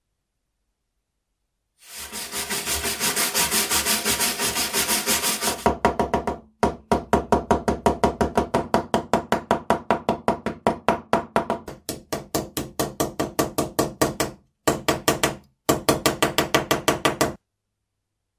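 Rapid back-and-forth rubbing strokes of hand work on the saw, about four to six strokes a second. They come in one long run with short pauses near the end.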